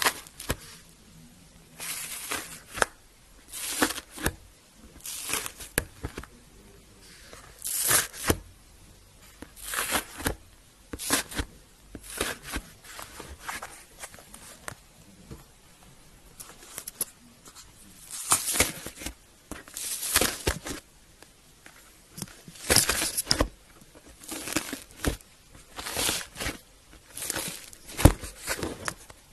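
Hands squishing and stretching slime: irregular sticky crackles and squelches, one or two bursts a second with short quiet gaps between.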